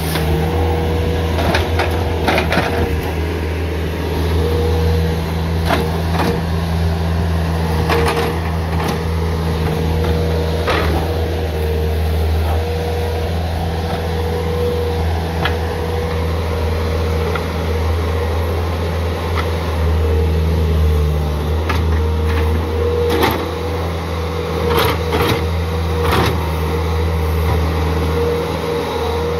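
Bobcat S300 skid steer's diesel engine running steadily while working its grapple saw attachment, with scattered knocks and clunks as the grapple handles logs.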